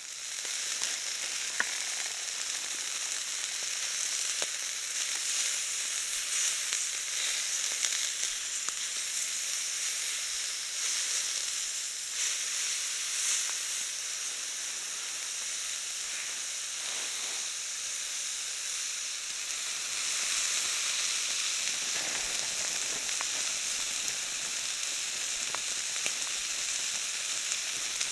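Food frying in a pan, sizzling steadily with occasional small pops.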